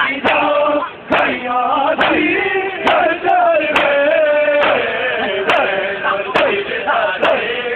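Matam: a group of men chanting a mourning lament in chorus while beating their bare chests with open palms in unison, a sharp slap about once a second keeping the beat of the chant.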